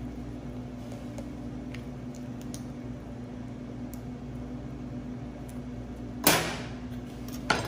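Steady low mechanical hum of kitchen equipment, with a few faint ticks. About six seconds in comes a sharp knock with a brief ringing tail, and a second short knock follows near the end.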